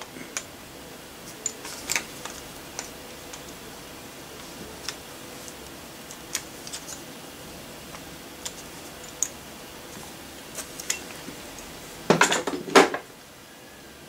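Light metallic clicks and clinks of a folding hex key set working on a bicycle brake lever clamp on the handlebar, scattered irregularly, with a louder burst of handling noise near the end.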